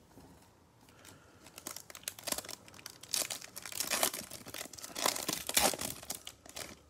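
The wrapper of a Bowman Chrome baseball card pack crinkling and tearing as it is ripped open by hand. It is a rapid crackle of small snaps that builds from about a second in and is loudest in the second half.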